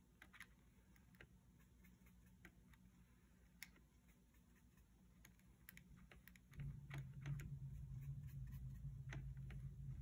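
Faint, scattered clicks and taps of a paintbrush working in a plastic watercolor paint tray and dabbing paint onto its clear plastic lid. A low hum comes in about two-thirds of the way through.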